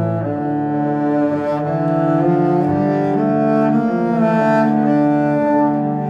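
Background music of slow, long-held low notes that change every second or so.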